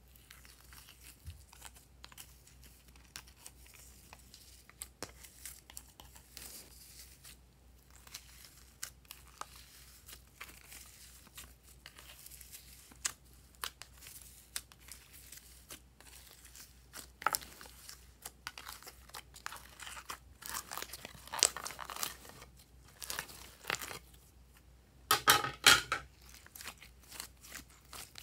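Glitter-coated glossy slime being peeled off a plastic tray and squeezed by hand: sticky crackling and small pops as it pulls away. The crackling is louder and denser in a few runs, the loudest about three-quarters of the way through.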